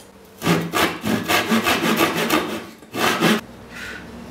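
Hand saw cutting through a wooden board in quick back-and-forth strokes, about four a second, with a brief pause before a last short burst of strokes.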